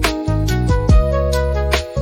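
Background music: an upbeat instrumental track with a bass line and a steady beat.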